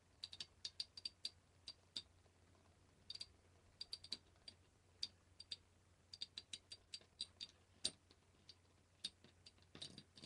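Two metal-wheeled Beyblade spinning tops clashing in a plastic stadium: a run of sharp, irregular clicks as the metal wheels knock together, coming in clusters with short gaps, and a denser flurry near the end.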